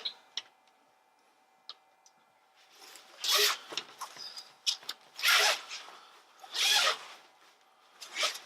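Zipper on a 5-in-1 photo reflector's cover being pulled in several quick swishing strokes, with fabric handling, as the cover is changed over to the white side. The strokes start about three seconds in, after a short quiet spell.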